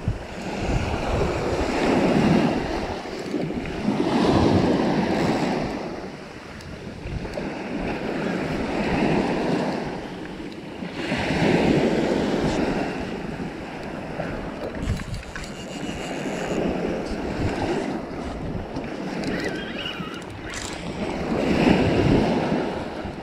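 Small surf breaking and washing up a sandy beach, the rush swelling and falling every few seconds, with wind buffeting the microphone.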